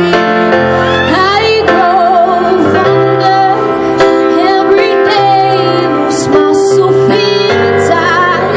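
A 13-year-old girl singing a slow ballad solo, with vibrato on held notes, over instrumental accompaniment.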